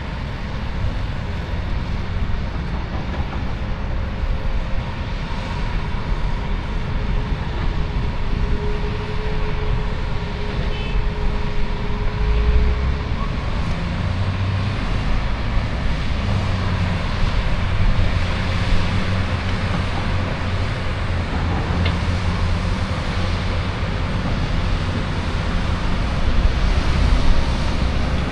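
Diesel engines of a Caterpillar excavator and articulated dump trucks working at a distance: a steady low rumble that swells briefly twice, about 12 seconds in and near the end.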